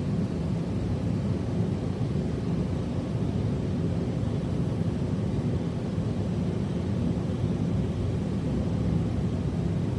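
A steady, even low rumble of noise with no clear pitch, unchanging until it cuts off suddenly at the end.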